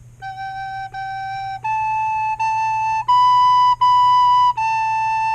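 Soprano recorder playing a seven-note phrase in one breath, each note tongued: G, G, A, A, B, B, then a held A. The pitch steps up in pairs and drops back for the last, longer note.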